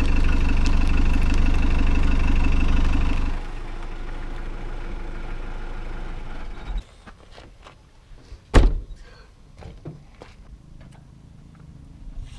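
Car engine running steadily, then dropping to a quieter steady hum after a few seconds and stopping about halfway through. Then a single loud thump and a few faint clicks and knocks.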